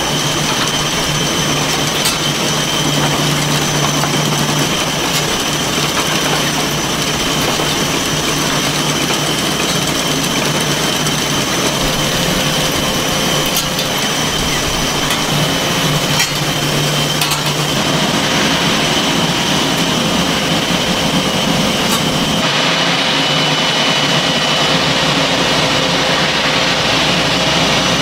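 Steady running noise of instant-noodle production-line machinery: conveyors and mould-tray chains with a continuous high whine and a low hum over a constant hiss. The mix shifts abruptly about two-thirds of the way through, and again a few seconds later.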